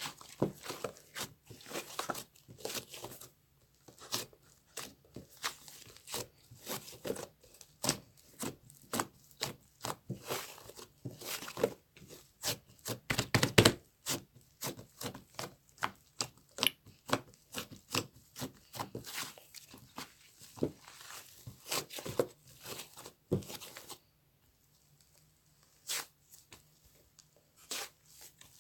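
Close-up handling sounds: many irregular sharp taps and clicks with tearing- and crinkling-like noises. They stop briefly near the end, then come back with a single tap.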